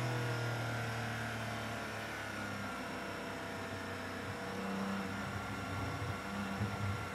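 Porsche 718 Cayman GT4 Clubsport's flat-six race engine heard from inside the cockpit, off the throttle in third gear as the car slows. The engine note drops away and falls in pitch, then runs low and steady, with a couple of brief louder thumps near the end.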